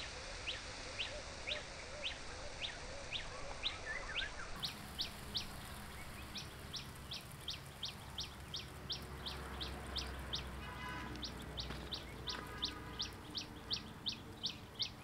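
A small bird calling with short, high, rising chirps, about two a second at first and then about three a second. A second, lower call is heard briefly partway through.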